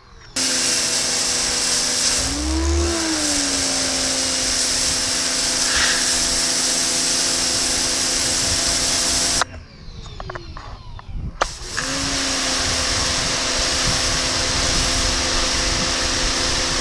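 Harbor Freight 1750 PSI corded electric pressure washer running, a steady motor and pump hum over the hiss of the water spray. It cuts off about nine seconds in, stays off for about two seconds, then starts up again.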